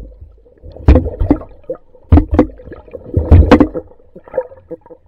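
Catfish swarming and feeding, heard through an underwater camera: a rapid, irregular run of loud thumps and gurgles as the fish crowd around it.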